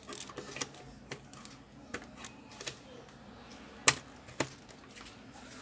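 Scattered light clicks and taps, with one sharp click about four seconds in and a smaller one half a second later, from the automatic voltage regulator being plugged in and powered up for its first test after repair.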